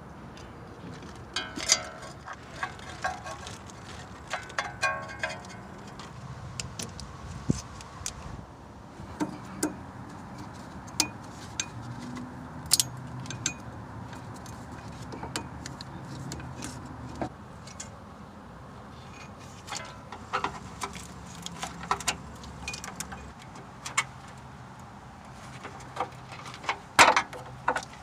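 Hand tools clicking and clinking on metal as a front wheel speed sensor is worked loose and removed from the hub: scattered sharp ticks and short metallic rings, busiest near the start and again near the end, with a quieter stretch in between.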